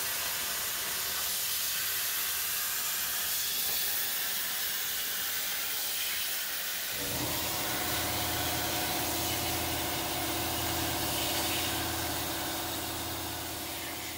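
Hypertherm Powermax 45 XP plasma torch cutting steel sheet on a CNC table: a loud, steady hiss of the air-plasma arc, joined about halfway through by a steady low hum with several fixed tones.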